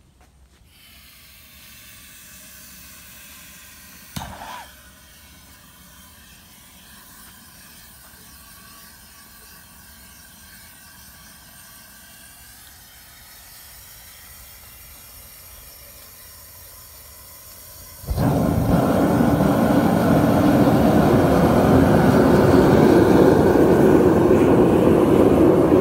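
Propane burner of a scrap-copper melting furnace: a faint hiss of gas, a short loud whoosh about four seconds in as it lights, then from about eighteen seconds a sudden, much louder steady rushing of the burner running at full blast.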